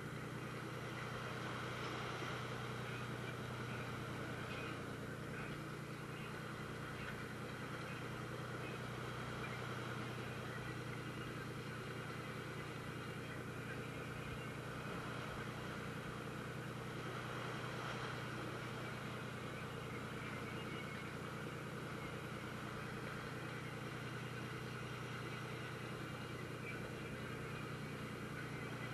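Fishing boat's engine running steadily: a constant low drone with an even hiss over it.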